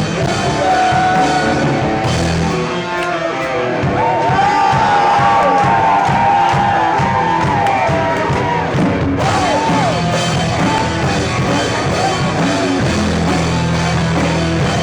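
Live rock band playing an instrumental break between sung lines: drums and bass under a lead line of long held notes that bend up and down through the middle of the passage.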